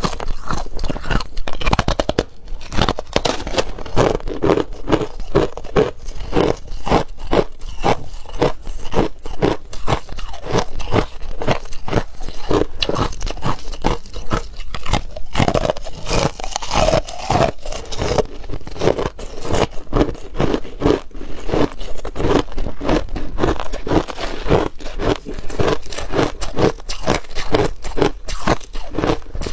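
Crushed ice crunching as it is bitten and chewed close to the microphone, a rapid, unbroken run of crunches.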